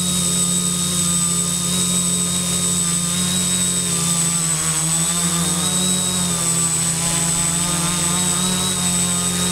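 Quadcopter's electric motors and propellers droning steadily, with a thin high-pitched electronic whine above the drone. The pitch wavers slightly about halfway through as the motor speeds shift.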